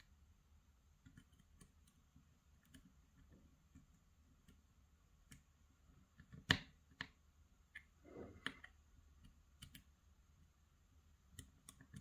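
Faint, scattered small metal clicks and taps of a lock pick probing the pins of a Kaba Micro lock under tension, with one sharper click a little past halfway and a brief rattle of clicks soon after.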